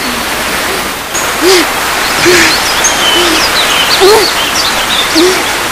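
Outdoor ambience of calling birds: a short, low, arching hoot repeats about once a second, with scattered higher chirps and whistles over a steady rushing hiss.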